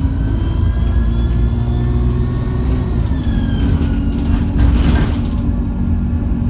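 ADL Enviro200 bus engine pulling under load with a rising turbo whine over the low engine rumble; the whine drops in pitch about three seconds in as the revs fall. A short hiss about four and a half seconds in.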